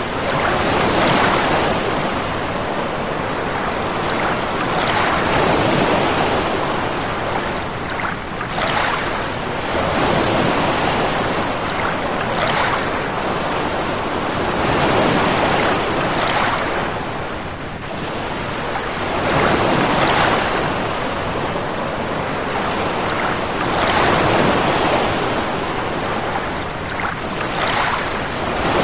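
Ocean waves breaking and washing in, the noise swelling and easing every few seconds.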